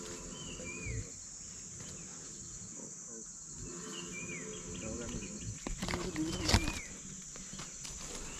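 Forest insects droning steadily at a high pitch, with a bird repeating a short falling call about every two seconds. A brief cluster of loud knocks comes about six seconds in.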